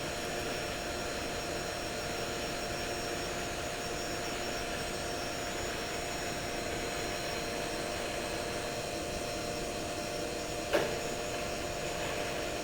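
Front-loading washing machine running with its drum spinning, a steady whir with a steady hum. The drum is vibrating noticeably. One short knock comes near the end.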